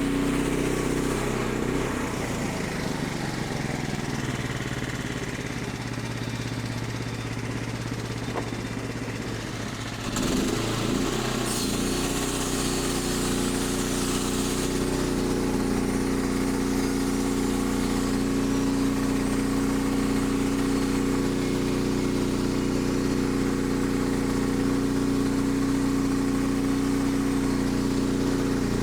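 Portable sawmill's engine running steadily. Its pitch sags for several seconds, then climbs back to its earlier speed about eleven seconds in, with a brief hiss as it does.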